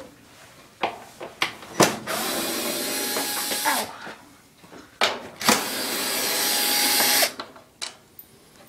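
Power drill running twice, about two seconds each time, with clicks and knocks of handling between the runs, as the dryer's front cover is being taken off.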